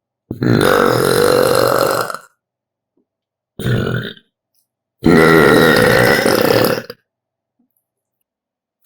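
Three loud, drawn-out burps: one of about two seconds, then a short one, then another of about two seconds.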